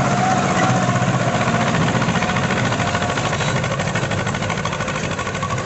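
Heavy diesel engine running steadily at a low, even speed, with a thin whine above it that fades out about halfway through.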